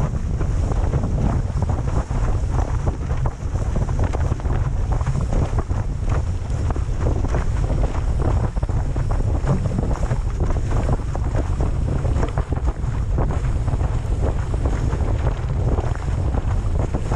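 Strong wind buffeting the microphone as a slalom windsurf board planes fast, with rushing water and a constant patter of short splashes from spray and chop hitting the board and rig.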